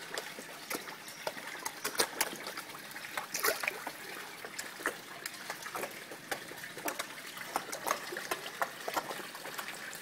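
Koi feeding at the water surface: irregular small splashes and slurping pops as they gulp floating pellets, over a steady trickle of water.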